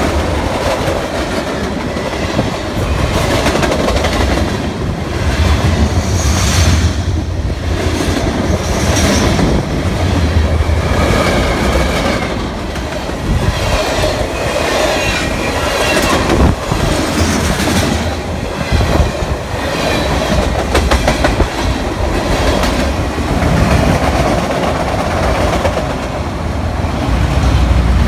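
Railroad cars rolling past close by: a loud, steady rumble of steel wheels on the rails, broken by sharp wheel clicks, with the cars of an autorack freight train going by near the end.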